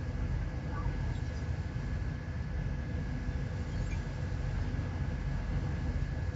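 Ship's engine running steadily: a constant low rumble with a faint steady whine above it.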